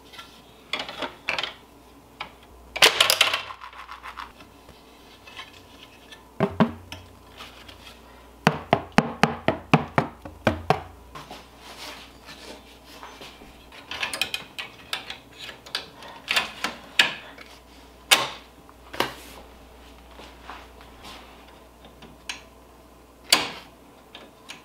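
Clicks, clacks and knocks of a plastic magnetic embroidery hoop and its steel mounting brackets being handled and fitted onto an embroidery machine's hoop carriage. A short rustle comes about three seconds in, and a quick run of clicks comes about nine seconds in.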